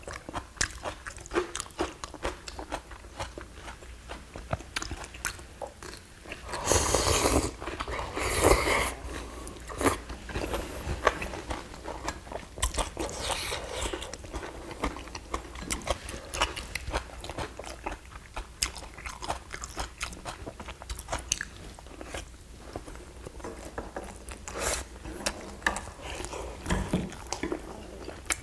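Close-up eating sounds: chewing and crunching food, with many short clicks of chopsticks and spoons against ceramic bowls and plates, and a louder, longer noisy stretch about seven to nine seconds in.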